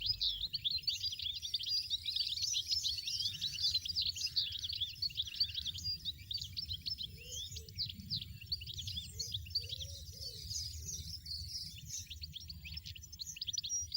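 Small songbirds twittering, with many rapid high chirps overlapping without a break over a low rumble.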